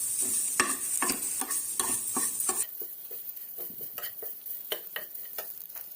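Spatula stirring and scraping grated coconut and garlic frying in oil in a pan, with a light sizzle. The sizzle fades about halfway through, and the stirring strokes grow sparser.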